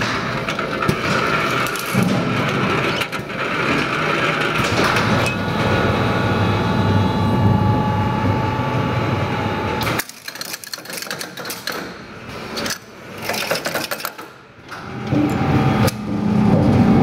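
JBF KW 765 automatic yarn ball-winding machine running, a dense mechanical clatter and whir. About ten seconds in it drops suddenly to quieter, scattered clicks and knocks, then grows loud again near the end.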